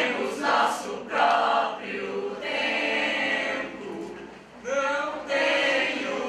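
A group of voices singing together, choir-style, in short phrases.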